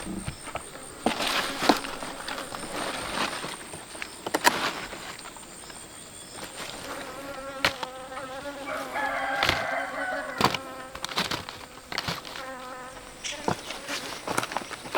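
A flying insect buzzing close by, a wavering hum that comes in about seven seconds in, swells and fades again near the end. Scattered sharp knocks and rustles of handling come in between.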